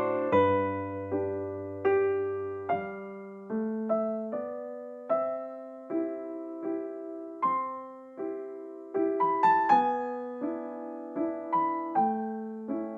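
Background music: a slow, gentle piano melody of single struck notes and soft chords, each note fading away.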